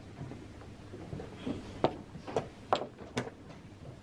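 Blitz chess moves being played: pieces set down on the board and a chess clock pressed, heard as four sharp clicks in the second half, over faint room noise.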